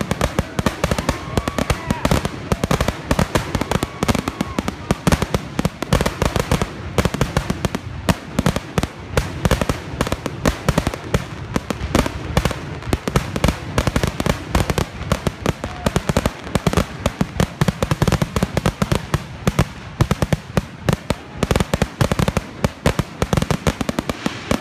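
Aerial fireworks going off in a dense, continuous barrage of sharp bangs and crackles, many per second.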